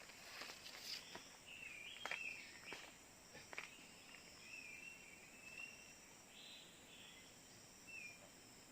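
Faint bird calls: short whistled, warbling phrases that come and go over several seconds. Behind them runs a steady high insect buzz of crickets or cicadas. A few soft clicks or rustles fall in the first few seconds.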